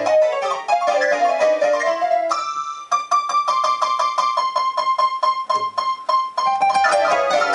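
Electric keyboard playing in a piano sound: quick runs of notes, then about three seconds in a single high note hammered over and over, about five times a second, for a few seconds before fuller playing comes back.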